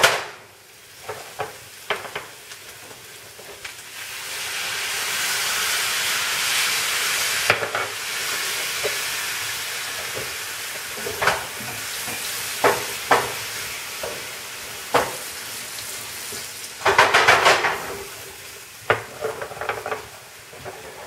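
Apple cider vinegar hitting a hot pan of roux and vegetables, sizzling up strongly a few seconds in and then slowly dying down. The utensil scrapes and taps against the frying pan as it is stirred, with one louder clatter near the end.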